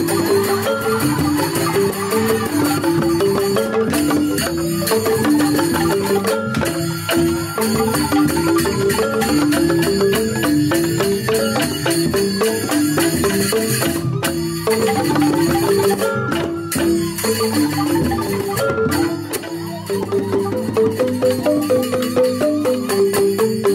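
Balinese joged bumbung gamelan: bamboo xylophones (grantang) played with mallets in a fast, repeating melody, with percussion underneath.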